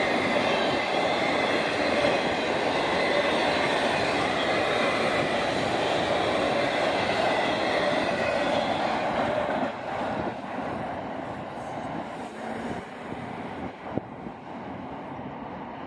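Freight train of autorack cars rolling past at close range: a steady rumble of wheels on rail with high, steady tones above it. About ten seconds in, the last cars go by and the sound falls away to a fainter rumble, with a single click near the end.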